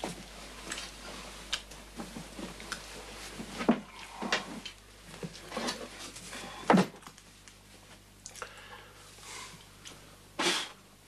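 Fabric rustling as a heavy garment is handled, with scattered light knocks and creaks. Two sharper knocks come about four and seven seconds in.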